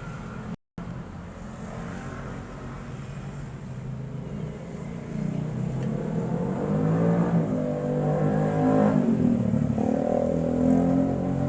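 A motor vehicle engine running, growing louder from about five seconds in, its pitch rising and falling as it revs.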